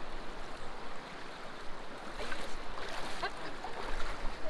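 Steady rush of river water flowing, with a few short chirping calls a little past halfway through.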